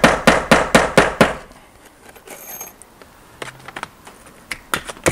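Claw hammer driving a nail through the nailing slot of vinyl J-channel: a quick run of sharp strikes about four a second, which stop after a second and a half. A few more taps start near the end.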